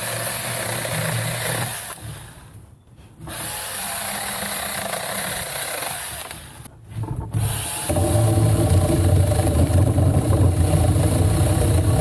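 Alloyman 6-inch 20-volt cordless mini chainsaw running in bursts, its chain whining high, stopping briefly twice as the trigger is let go. From about two-thirds of the way in it runs louder and heavier as it cuts into wood.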